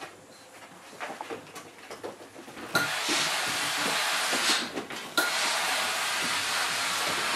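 Faint patter and clicks of puppies scrabbling at toys on a hard floor. About three seconds in, a loud steady hiss starts abruptly, breaks off briefly past the middle, then starts again just as suddenly and holds.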